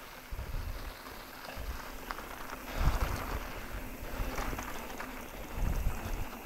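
Mountain bike riding fast down a dirt singletrack: tyres rolling over dirt and small rocks, the bike rattling over bumps, with wind on the microphone. Two heavier jolts come about three and six seconds in.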